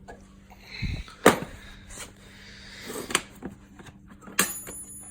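A few sharp clicks and knocks from a container of tools being handled and opened, the loudest about a second in, with a dull thump just before it.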